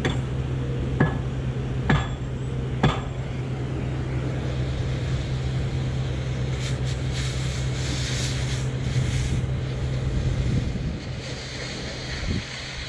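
Four ringing hammer blows on steel, about a second apart, over a steady engine hum. A hissing noise comes in from about halfway through.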